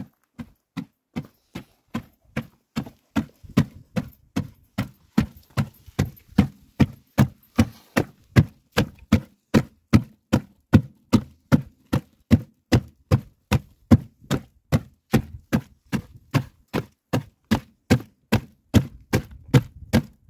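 A bundle of twigs used as a whisk beating a thick, frothy dairy mixture in a large metal pot, in steady rhythmic slaps of about two and a half strokes a second, growing louder over the first few seconds.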